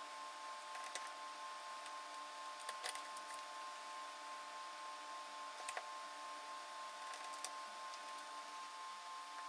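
A few light, sharp clicks and taps from small tools and phone parts being handled during an iPhone 6 repair, spaced a couple of seconds apart. Behind them is a steady hiss and a faint steady whine.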